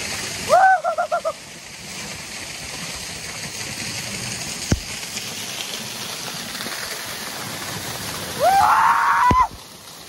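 Waterfall rushing steadily, water falling hard and splashing. A person calls out briefly near the start and gives a longer held shout near the end, with a sharp click near the middle.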